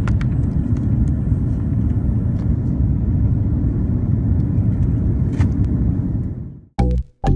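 Steady low rumble of an airliner rolling along the runway, heard from inside the cabin, with faint rattles. Near the end it fades out and two short loud hits follow.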